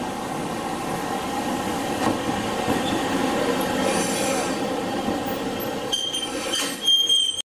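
Chikuho Electric Railway tram, car 3004, pulling in alongside a station platform and slowing, its wheels and running gear rumbling steadily. From about six seconds in, a high squeal rises as it comes to a stop.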